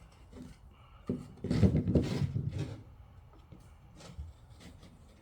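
Burrs being scraped off the edge of a freshly drilled hole in a plastic A2 rifle stock: a knock about a second in, then about a second of scraping, with small handling clicks around it.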